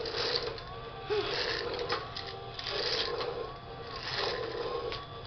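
A battery-powered walking T-Rex toy walking: its gear motor whirs and its plastic feet clack on a tile floor. The sound repeats in an even stride cycle, about one step every one and a half seconds.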